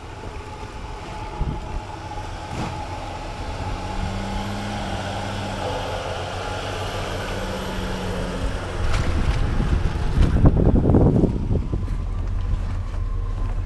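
Vehicle engines running at crawling speed on a rocky dirt trail: a steady low drone, with a louder, rougher stretch about ten to eleven seconds in.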